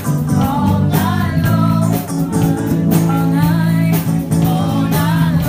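Live band playing a rock number: electric guitar, bass and drums with a singer, recorded on a mobile phone.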